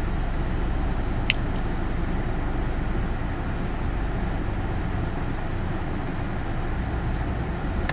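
Steady road and engine noise of a moving car, heard from inside the cabin, with one short click about a second in.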